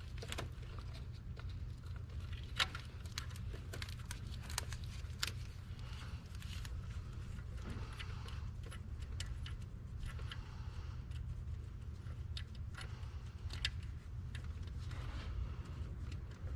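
Scattered light metallic clicks and clinks of hand tools and small fasteners being worked while a bracket is fitted in a car's engine bay, over a steady low hum.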